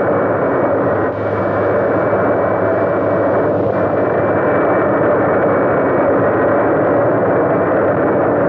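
Steady, loud jet aircraft noise in flight: an even rushing drone with a constant thin whine over it, holding level throughout.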